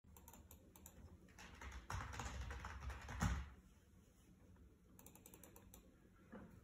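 Faint clicking of a computer mouse and keyboard. A stretch of louder rustling starts about two seconds in and ends in a short knock around the middle.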